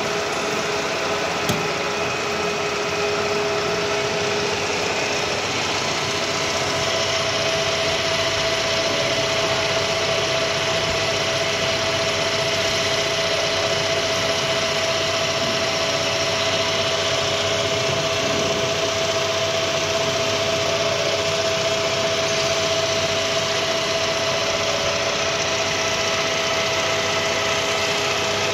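Centre lathe running steadily during a plain turning cut on a metal bar: the motor and headstock gears give a constant hum with two held tones over an even mechanical noise.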